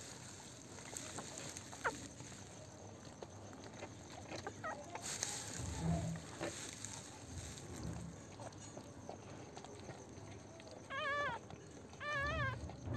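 Newborn Pomeranian puppies squealing: a couple of faint short squeaks, then two longer high, wavering cries near the end.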